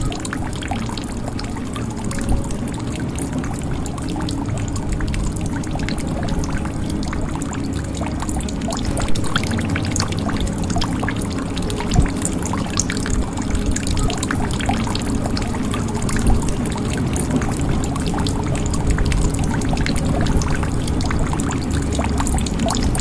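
Water pouring and trickling steadily into a jug, with many small drips and splashes.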